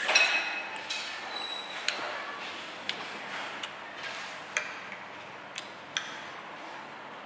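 Eating utensils tapping and clinking against a dish, about one sharp click a second, some with a short ringing tone.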